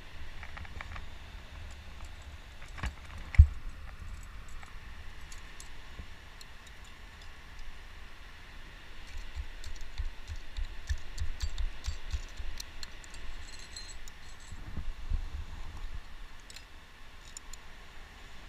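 Climbing gear clinking and jingling on a climber's harness as he moves up the rock, with scattered small clicks and scuffs and one sharp knock about three and a half seconds in, over a low rumble.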